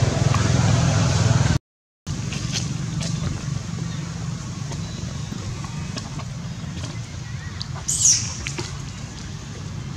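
Steady low outdoor rumble with hiss, cut to dead silence for half a second about two seconds in. A few faint clicks follow, and a short high-pitched squeal comes about eight seconds in.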